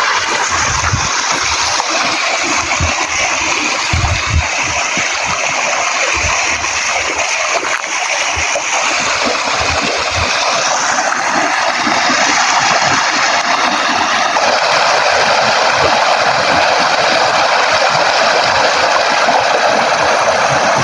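River water flowing and splashing steadily, a loud continuous rush, with scattered low thuds underneath.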